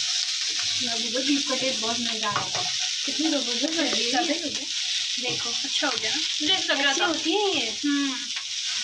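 Beef strips, onion and green pepper sizzling in a hot nonstick wok as a plastic spatula stirs them, with a person's voice talking over the frying.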